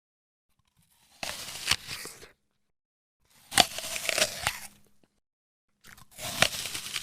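Crunchy food being bitten and chewed close to the microphone: three separate crunching bursts, each one to two seconds long and opening with a sharp crack.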